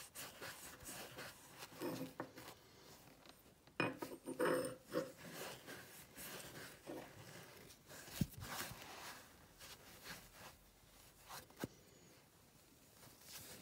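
Foam polishing pad rubbing and scuffing along a chrome-finished old HAZET open-ended wrench, with a few light clicks and knocks as the metal wrench is handled.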